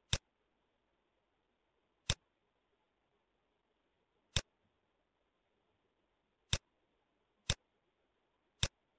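Computer mouse button clicks: six single sharp clicks at uneven spacing of one to two seconds, over a faint hiss.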